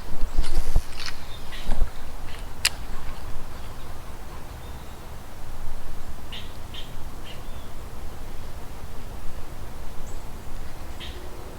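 Small birds chirping in short calls of two or three, about midway and again near the end, over a steady low rumble. A few sharp clicks and knocks sound in the first three seconds.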